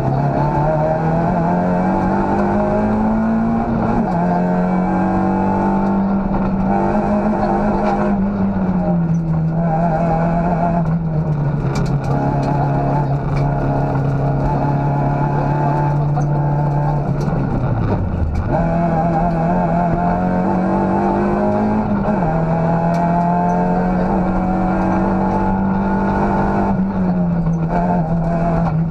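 Citroën Saxo rally car's four-cylinder engine, heard from inside the cabin at full stage pace. The engine note climbs and then drops in pitch again and again as the driver shifts gears. Around the middle it sinks sharply and then picks back up.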